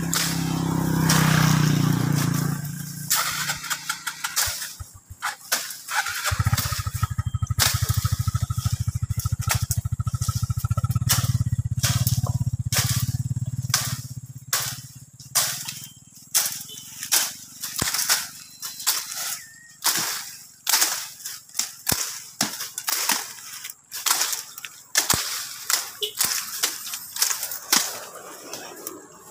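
Motorcycle engines: one comes past in the first few seconds, then a small motorcycle engine starts suddenly about six seconds in and runs steadily for some eight seconds. After that comes an irregular series of sharp chopping strokes, one or two a second, as a machete cuts through roadside brush and branches.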